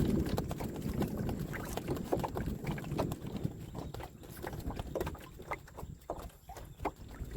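Irregular knocks and clicks on a small fishing boat over a steady low rumble of wind and water.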